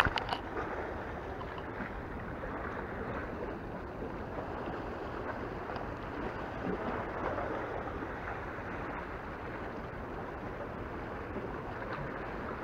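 Sea water washing and lapping steadily at the shore. A brief clatter of handling noise comes right at the start.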